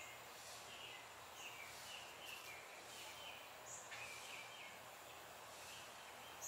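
Faint outdoor background hiss with short, high calls from a small animal repeated about twice a second.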